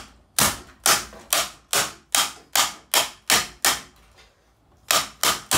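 A quick run of sharp, hard blows struck on a ceiling fan to smash it, about two to three a second. They stop for about a second near the end and then start again.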